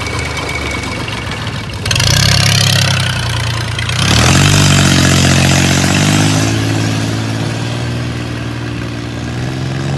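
Long-tail boat engine opened up as the boat pulls away. It revs up in steps about two and four seconds in, then runs fast and steady, with a rush of water and spray from the wake.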